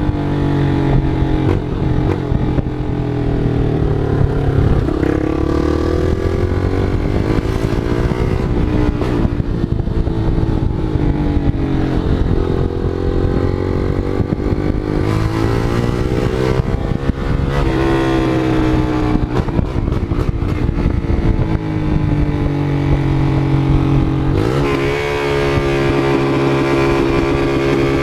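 Loud motorcycle engine revving, its pitch rising and falling in slow swells every few seconds, then climbing sharply near the end and holding high.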